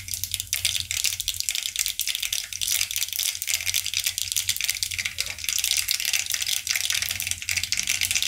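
Mustard seeds spluttering in hot oil in a kadai, a dense continuous crackle of many small pops. This is the tempering stage where the seeds must pop fully before the cumin goes in.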